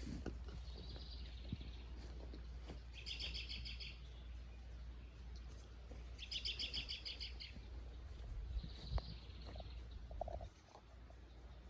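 Songbirds singing, with two loud, rapid trilled phrases about three and six seconds in and softer phrases between them, over a steady low rumble that drops away near the end. A single sharp knock sounds about nine seconds in.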